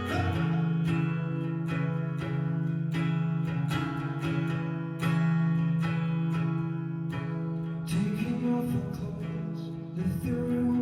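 Live solo music: an acoustic guitar strummed in an even rhythm under sustained chords, with a voice singing in about eight seconds in and again near the end.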